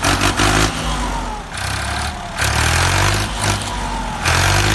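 Tractor engine running and revving, its note rising and falling in several surges.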